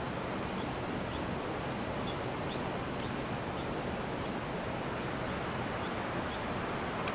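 Steady rushing roar of Victoria Falls, with a few faint high chirps now and then.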